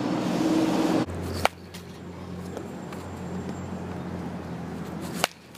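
Two sharp cracks of a bat hitting a baseball, about four seconds apart, over steady outdoor background noise. A louder rushing noise before them cuts off suddenly about a second in.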